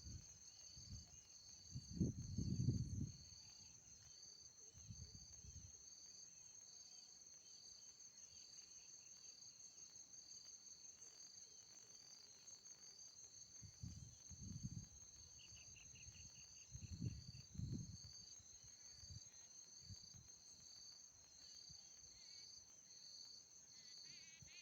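Crickets chirping steadily: an unbroken high pulsing trill with a second, slightly lower series of evenly spaced chirps. A brief lower trill cuts in about two-thirds of the way through, and a few low rumbles come and go.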